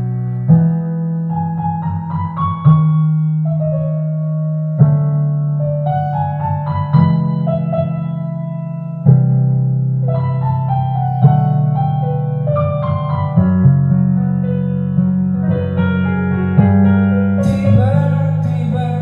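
Piano instrumental interlude of a slow pop ballad, playing chords under a moving melody, with each note struck and then fading. The sound grows fuller and brighter near the end.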